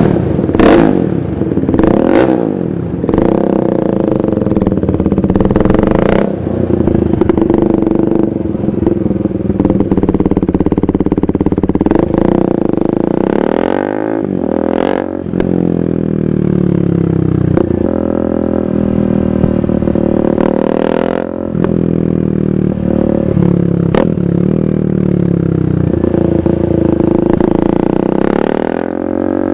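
A 2015 KTM 390 Duke's single-cylinder engine running through a KO Lightning aftermarket exhaust while riding. Revs rise and fall through gear changes, with a slow-down and pull-away about halfway through and a few sharp cracks near the start.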